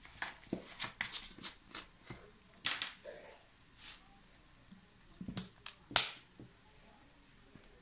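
A metal spoon clicking and knocking against containers as honey is spooned out. Light scattered clicks, with sharper knocks about two and a half, five and six seconds in.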